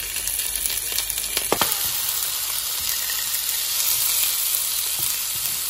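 Salmon fillets sizzling steadily in hot oil in a frying pan with its lid off. A light knock comes about a second and a half in.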